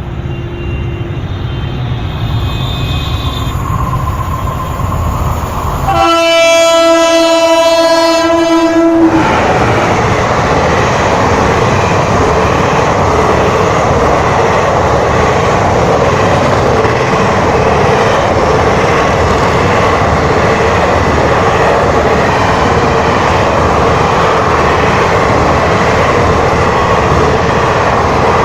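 Indian Railways WAP-4 electric locomotive approaching, growing louder, then sounding its horn for about three seconds; after the horn the train runs past with a steady, loud rush of wheels and coaches.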